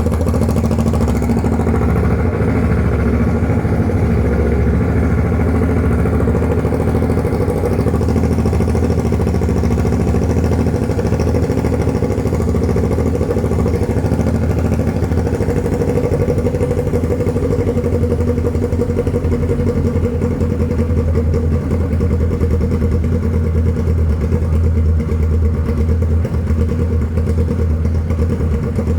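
Kawasaki Ninja 650's parallel-twin engine idling steadily through a short straight-pipe exhaust with its silencer removed, so there is no muffler at all.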